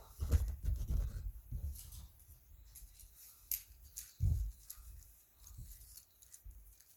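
Fidget toys being handled: soft rubbing and scraping with scattered light clicks and low bumps, busiest in the first two seconds and again about four seconds in.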